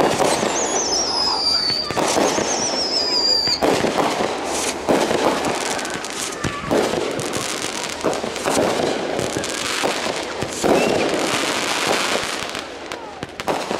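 Consumer aerial fireworks going off in rapid succession, with many sharp bangs and bursts of launching and exploding shots. Two high whistles fall in pitch during the first few seconds.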